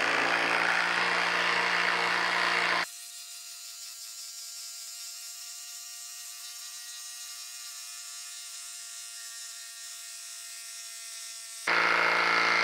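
DeWalt DCF809 Atomic 20V cordless impact driver hammering continuously as it drives an 8-inch lag screw into a dense wood stump, without managing to sink it fully. About three seconds in the hammering drops away to a faint steady hum, and it starts again near the end.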